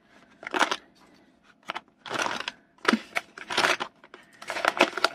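Crinkly packaging pouch rustling in several short bursts, with light clicks as small diamond-painting tools are dropped into it.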